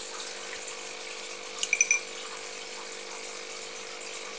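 Steady hum and water sound of running aquarium equipment, with a quick run of small ringing clinks about two seconds in as a glass CO2 diffuser is taken apart by hand.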